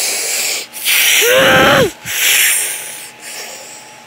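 A child's mouth sound effects: three loud breathy hisses in a row, the second with a short voiced 'ooh' that rises and falls, then quieter.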